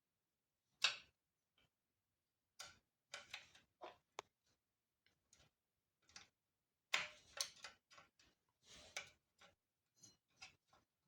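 Scattered light clicks and knocks of plastic and metal parts and screws being handled while an electric scooter's rear fender assembly is put back together. They come at irregular intervals, with a louder knock about a second in and a cluster of them in the second half.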